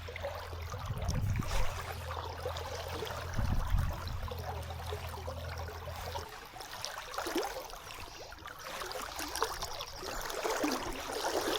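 River water flowing steadily, an even rushing. A low rumble with two brief louder bumps runs under it and stops about halfway through.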